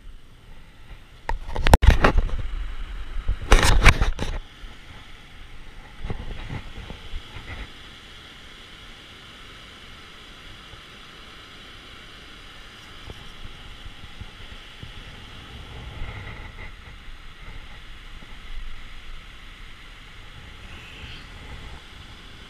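Steady rush of river water at a low dam, with two loud bursts of noise about two and four seconds in and a fainter one around six seconds.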